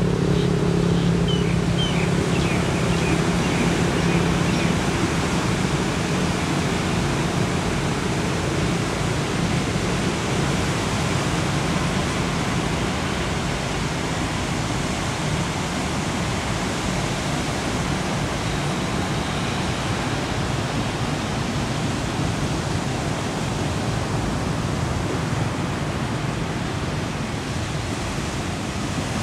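Steady wash of ocean surf breaking on a sandy beach, mixed with wind noise on the microphone. A low hum fades out over the first few seconds.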